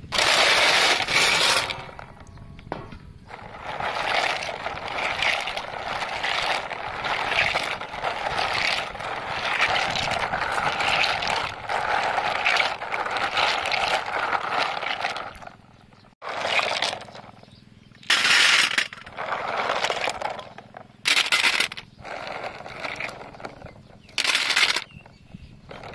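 Water sloshing and snail shells clattering against each other as snails are scrubbed and rinsed by hand in a basin, in irregular bursts. About sixteen seconds in the sound breaks off, and shorter separate bursts of sloshing follow.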